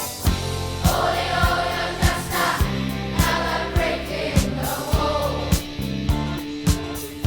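Background music: a choir-like vocal song over a steady drum beat.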